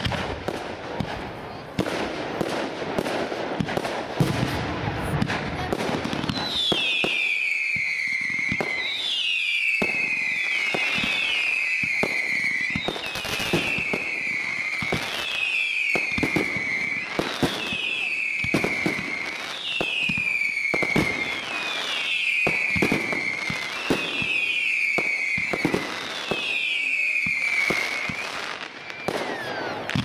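Fireworks display: a rapid run of bangs and crackling bursts, heaviest and deepest in the first few seconds. Through most of it a high whistling tone falls in pitch over about a second, again and again, roughly every second and a half.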